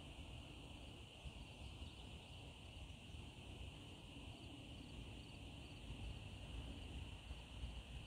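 A steady outdoor chorus of insects trilling without a break at dusk, faint, with a low uneven rumble underneath.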